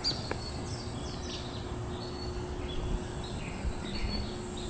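Cicada chorus making a steady, high-pitched shrill hiss, with birds chirping in short, scattered calls over it.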